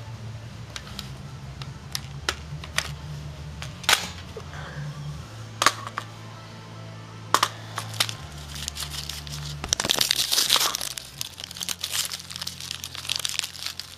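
Paper-wrapped packet of 5.45x39 7N6 cartridges being torn open and crumpled, with a few sharp clicks first and the crinkling loudest about ten seconds in.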